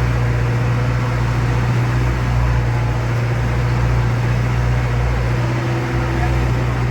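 Boat engine running steadily, a constant low drone under a wash of engine and water noise.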